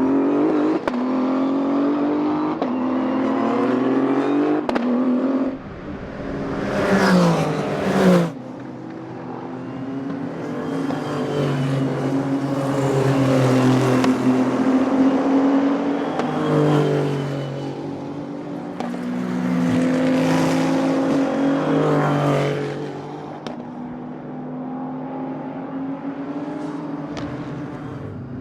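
Race cars at speed on a circuit, several engines running and revving with their notes climbing and stepping down. One car passes close about seven seconds in, its note sweeping down sharply, and another passes around twenty seconds in.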